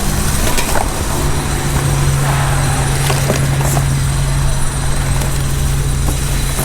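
A motor running steadily with a low hum that grows firmer about a second in.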